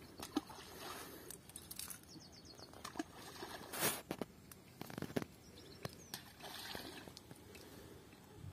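Balls of groundbait thrown into a pond, landing with short faint plops in the water, a few seconds apart, the clearest about four and five seconds in. Birds chirp faintly between them.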